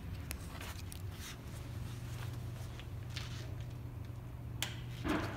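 Quiet handling sounds, scattered light clicks and rustles over a faint steady low hum. A single sharper click comes about four and a half seconds in, as the test unit's power is switched on.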